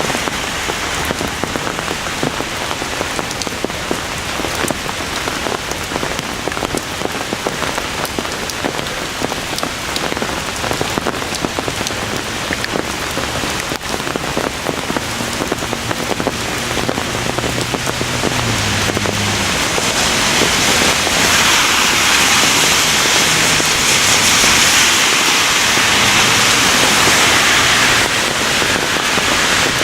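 Steady heavy rain pouring down, growing louder and heavier about two-thirds of the way through.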